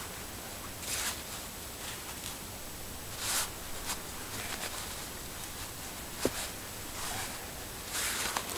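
Short rustling and scraping bursts, a few seconds apart, from hands pulling and adjusting a hammock's suspension strap on a pole frame to raise it, with one sharp click about six seconds in, over a steady hiss.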